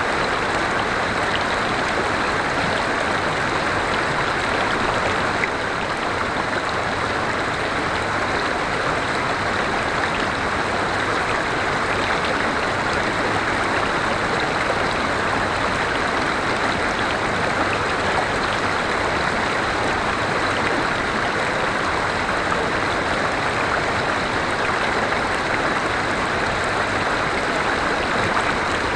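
Forest river water flowing steadily over rocks, a continuous rushing and splashing with no break.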